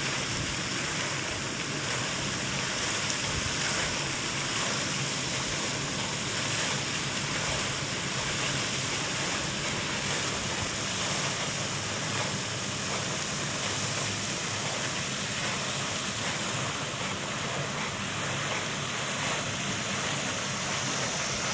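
Steady rushing splash of a pond fountain's jet falling back onto the water, unchanging throughout.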